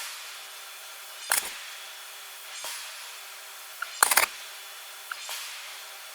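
Forging hammer striking a hot iron block over a steady machine hum: one sharp blow about a second in, then a louder quick run of blows about four seconds in.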